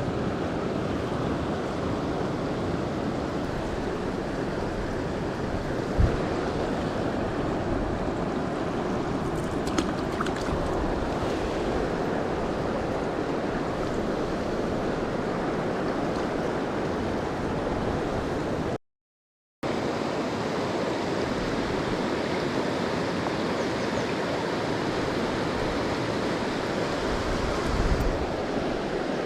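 Mountain stream water rushing steadily, with a single soft knock about six seconds in and a brief dropout to silence about two-thirds of the way through.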